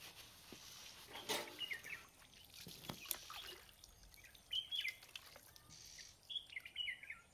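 Faint birds chirping: short, quick, falling call phrases repeated about three times, with a couple of faint clicks, over quiet outdoor background.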